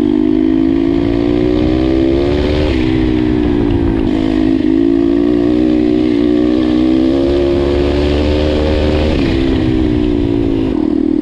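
Single-cylinder engine of a turbocharged Chinese 140 cc pit bike under way. It pulls steadily with its pitch slowly rising, then drops sharply several times as the throttle eases or the gear changes, about a third of the way in, again a little later, and twice near the end.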